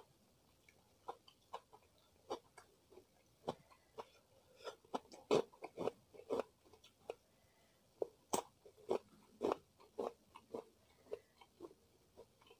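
Close-up chewing of crunchy food: a run of crisp, irregular crunches and mouth clicks, thickest and loudest around the middle.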